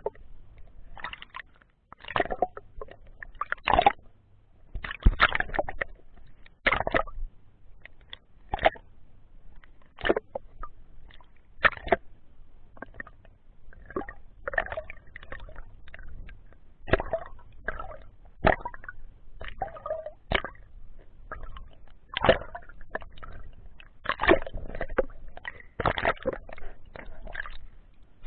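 Muffled water sloshing and splashing in irregular short bursts.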